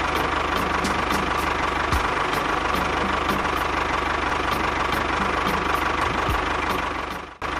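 Toy tractor running as it drives, a steady engine-like drone with a continuous whine and faint regular ticking about three times a second. It breaks off briefly near the end.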